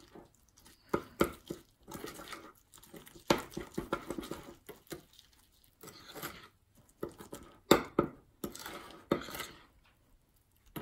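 Metal spoon stirring a thick cinnamon-sugar paste in a small glass bowl, scraping and clinking against the glass in irregular strokes.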